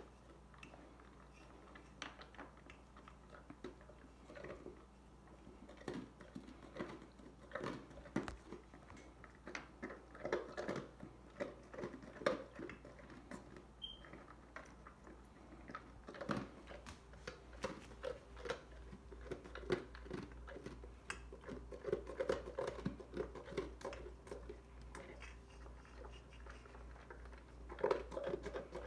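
Dog eating dry kibble from a metal bowl: many irregular crunches and chewing sounds.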